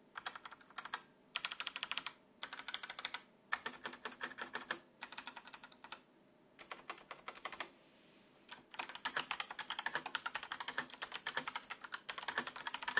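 Typing on a Hama uRage Exodus 900 mechanical keyboard with Ultimo brown switches: quick runs of key clicks in short bursts with brief pauses, then a longer steady run of typing in the second half.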